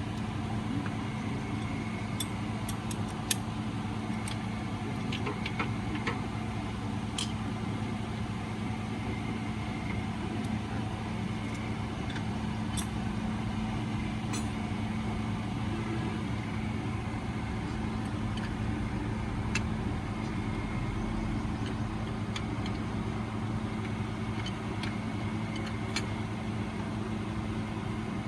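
Toyota Corolla XLi engine idling steadily, with a few light clicks over it.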